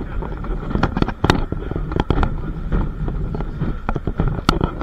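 Heritage train running: a steady low rumble with irregular sharp clacks and knocks, the loudest about a second in.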